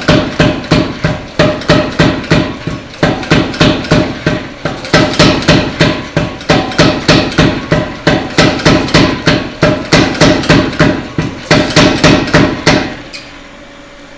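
Hammer blows on hot steel over an anvil, rapid and rhythmic at about three to four a second, in runs with short breaks and a ringing anvil tone: a blacksmith drawing out a taper. The hammering stops about a second before the end, leaving a low hum.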